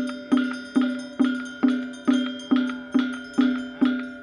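A hollow, pitched percussion instrument struck at a steady pace, a little over two strokes a second, each knock ringing briefly at the same note.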